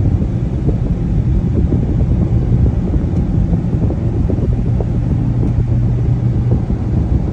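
Steady low drone of a car cruising at highway speed, heard inside the cabin: tyre and engine rumble with a low hum.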